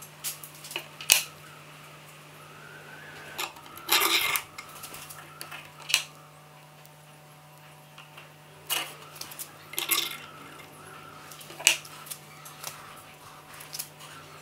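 Scattered sharp clicks and light taps, with a short scrape about four seconds in, from a stick mixing two-part epoxy on a plywood scrap and small knife-handle parts being picked up and set down on a workbench.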